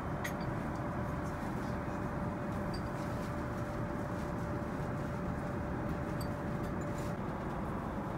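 Steady cabin noise of an Airbus A380 in flight: an even, low rush of engines and airflow, with a faint steady hum that stops near the end and a few faint ticks.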